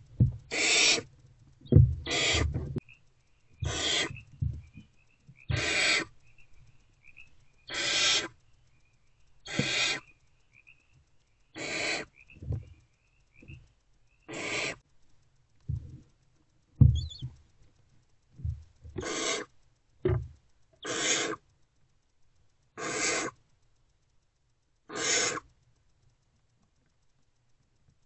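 Barn owl owlets giving their rasping, hiss-like 'snore' begging calls, about a dozen calls of half a second each, roughly every two seconds, with a pause of a few seconds past the middle. Low thuds sound between the calls in the first few seconds.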